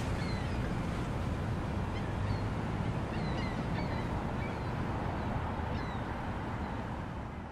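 Outdoor ambience: a steady low rumble of wind or water with scattered short bird chirps, fading out near the end.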